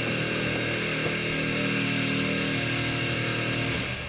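A steady machine noise with several held tones, loud and unbroken, which stops shortly before the end. It comes from work going on nearby, which is described as so noisy.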